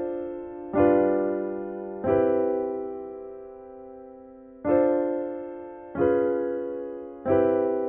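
Sustained keyboard chords from a software instrument, each struck and left to fade: a ii–V–I in C (Dm7, G7, Cmaj7), then the same progression with the tritone-substitute Db7 in place of G7 (Dm7, Db7, Cmaj7). The first Cmaj7 is held about two and a half seconds, and the last chord starts near the end.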